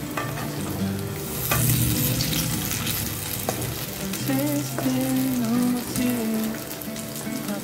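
Urad dal and potato pakoras deep-frying in hot oil in a kadhai, sizzling steadily. A wooden spatula scrapes and knocks against the pan a few times as they are turned on a medium flame.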